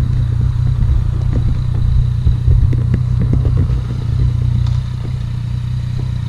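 Motorcycle engine idling steadily, just restarted after the empty tank was refilled with petrol. Irregular knocks and rattles sound over it between about one and four seconds in.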